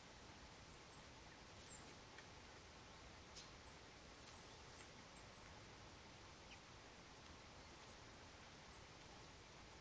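Near silence broken by three short, very high, thin calls of a small bird, each falling slightly in pitch and spaced a few seconds apart.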